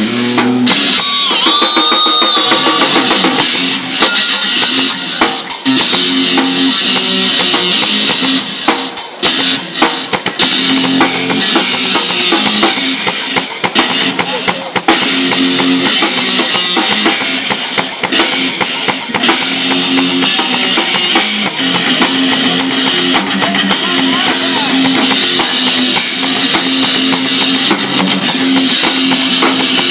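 Rock music played on drum kit and guitars, with a steady beat and a short bent guitar note about two seconds in.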